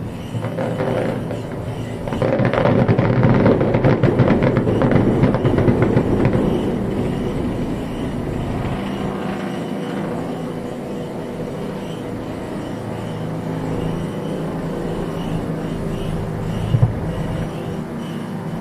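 Aerial fireworks bursting overhead: a dense spell of crackling from about two to seven seconds in, then a steadier rolling rumble as the shells fade.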